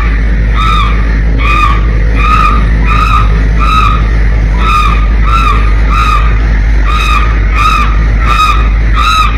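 A crow-like caw repeated evenly about thirteen times, roughly one every 0.7 seconds, each call the same arched shape, over a steady low rumble.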